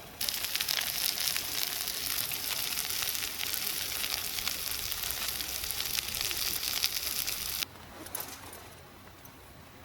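Food sizzling in a pan over a wood fire: a dense, even sizzle with fine crackles that starts suddenly and cuts off abruptly about seven and a half seconds in, leaving only faint crackling.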